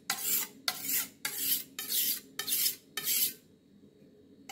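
Kitchen knife blade being sharpened on a whetstone: six quick scraping strokes of steel across the stone, about two a second, which stop about three and a half seconds in.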